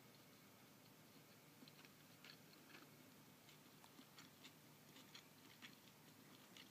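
Near silence: faint room hiss with scattered small, irregular clicks.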